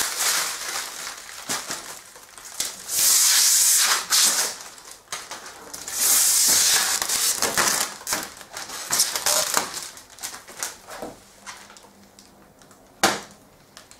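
Plastic wrap and packing tape being pulled off and crumpled, crackling and rustling throughout. Two long tearing rasps come about three and six seconds in, and a sharp knock comes near the end.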